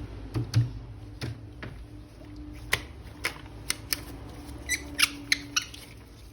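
Plastic action-figure toy and its packaging being handled: a string of separate sharp plastic clicks and taps, with a few short squeaks near the end.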